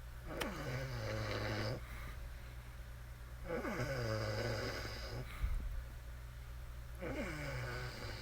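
A woman snoring: three long snores about three seconds apart, each starting with a falling pitch and then holding steady.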